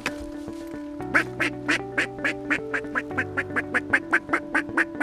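Background music, and from about a second in a fast, evenly spaced run of duck quacks, about four a second, louder than the music.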